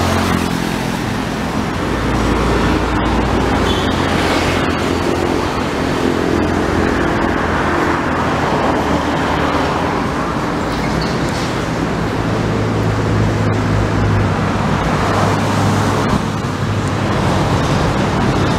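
Road traffic noise: cars and heavier vehicles running past, with a steady low engine hum underneath.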